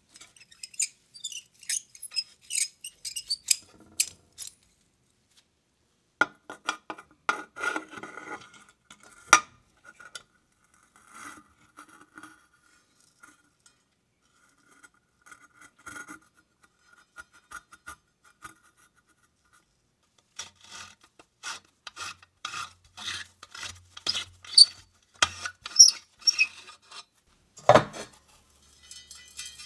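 Rusty sheet-metal parts of an old ROYALUX hurricane oil lamp being handled: intermittent scraping and rubbing of corroded metal, light clicks, and one louder knock near the end.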